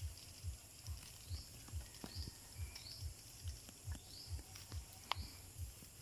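Outdoor ambience among trees: a steady low thump repeating about twice a second, with faint high bird chirps that slide downward and a few sharp clicks, the loudest about five seconds in.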